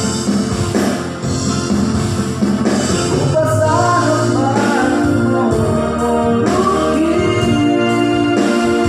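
An electronic keyboard plays held organ-like chords over a drum-machine beat. A voice sings a slow melody over it, coming in about three and a half seconds in.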